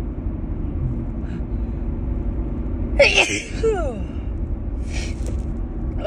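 A woman sneezing once, about halfway through: a sharp burst of breath followed by a falling voiced cry. A steady low hum lies underneath throughout.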